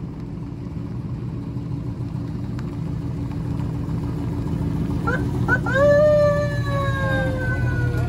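Hummer H2 V8 engines running as the trucks roll past slowly, growing louder. About five seconds in, a vehicle-mounted siren gives two short rising chirps, then a long wail that slowly falls in pitch.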